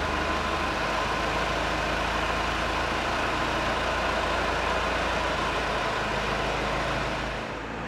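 Grain-store ventilation fan running steadily, an even rush of air with a faint hum, blowing air into the grain to draw off field or dryer heat. It eases slightly near the end.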